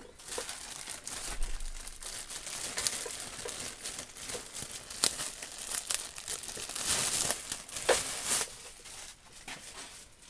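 Thin clear plastic bag crinkling and crackling in irregular bursts as it is pulled off a coiled power cable, loudest about three-quarters of the way through and dying away near the end.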